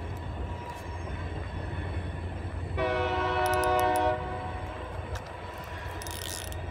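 Distant train horn sounding once as a steady chord for about a second and a half, starting about three seconds in, over a steady low rumble.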